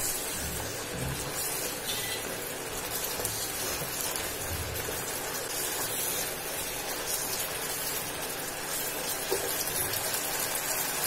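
Boiled black chickpeas (kala chana) sizzling and bubbling in a tomato-and-spice masala in a kadhai as they are stirred with a wooden spatula: a steady, even crackling hiss, with a few low knocks of the spatula against the pan.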